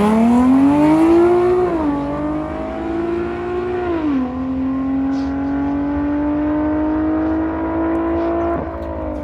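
A vehicle's engine accelerating hard through a drag-strip pass: the engine note climbs, drops sharply at gear shifts about 2 and 4 seconds in, then holds and slowly rises before falling away near the end as the driver lifts off.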